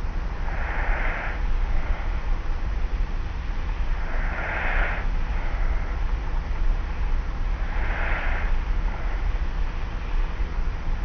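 Light snoring of a person asleep on their back, recorded on a cassette tape recorder: three soft, breathy snores about three and a half seconds apart over a steady low hum and tape hiss.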